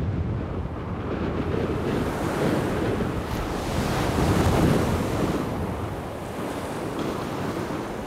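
Heavy storm surf breaking and rushing against a sea wall, with strong wind buffeting the microphone. The wash swells to its loudest about halfway through, then eases slightly.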